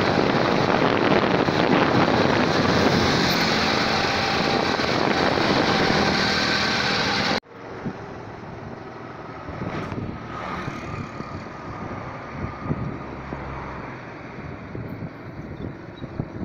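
Strong wind rushing over a phone's microphone, loud and steady, cutting off abruptly about seven seconds in; after that, quieter wind with road traffic, and a vehicle passing about ten seconds in.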